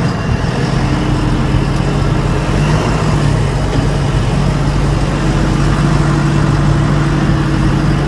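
JCB backhoe loader's diesel engine running steadily as the machine is driven, heard from inside the cab as a constant low hum.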